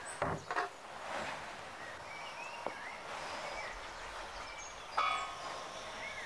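Knocks as a plastic jug is set down on a tiled floor, then a ringing metal clink about five seconds in as a pot on a small gas burner is handled. Birds chirp now and then over a steady outdoor background.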